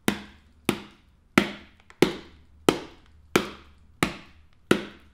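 Foley punch sound effect: eight sharp, evenly spaced hits, about two-thirds of a second apart, each with a short decaying tail.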